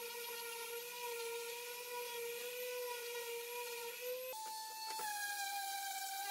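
Electric random orbital sander running against a pallet-wood board, a steady motor whine with overtones. A little over four seconds in, the whine jumps abruptly to a higher pitch and then wavers slightly as the sander is worked.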